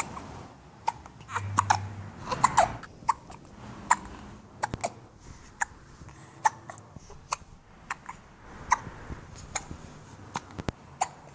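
A baby hiccuping over and over: short, sharp hiccups, unevenly spaced and at times nearly two a second, with a brief low vocal sound between them about one and a half seconds in.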